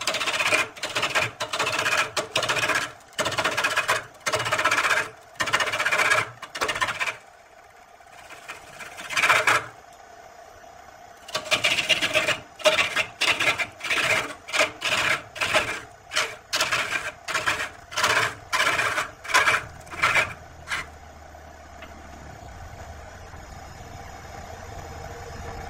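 A hand-held turning tool cuts into a wooden spindle spinning on a wood lathe, scraping in short repeated passes about twice a second as shavings fly. The cutting pauses for a few seconds about a third of the way in, then resumes. Near the end it stops, leaving only the lathe running with the blank spinning free.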